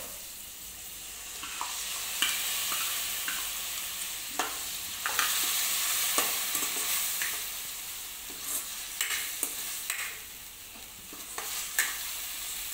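Soaked toor dal sizzling as it hits hot oil and onion-tomato masala in a kadhai. A steady frying hiss runs under the sharp clicks and scrapes of a metal ladle stirring against the pan.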